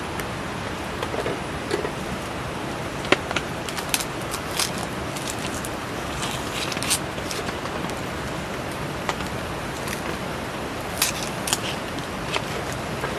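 Wood campfire crackling with scattered sharp pops over a steady hiss of rain.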